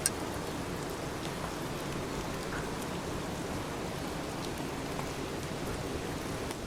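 Steady rain falling: an even hiss with scattered faint drop ticks. A sharp click comes right at the start.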